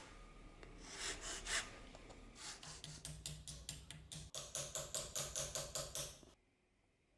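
Hand file rasping on metal held in a bench vise: a few slower, uneven strokes, then a fast even run of about five strokes a second that stops abruptly a little after six seconds in.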